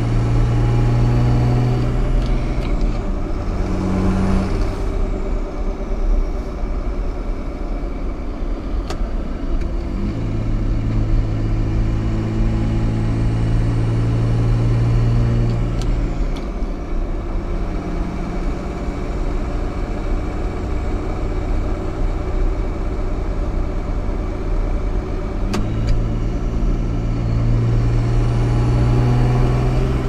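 Cummins straight-six turbo diesel pickup driving through the gears of its G56 six-speed manual, heard from the cab. The engine note drops away and comes back several times as gears change, with sharp clicks at the shifts. The gearbox rollover noise carries into the cab more through the new short shifter.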